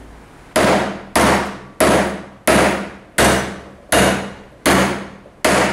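Hammer striking a metal drift set on a moped wheel bearing: eight measured blows at an even pace of about one every 0.7 s, each with a short metallic ring, as the bearing is driven in its seat.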